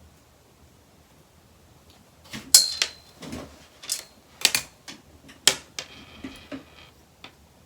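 Knitting needles being handled, giving a run of sharp clicks and clacks over a few seconds. The first and loudest click rings briefly.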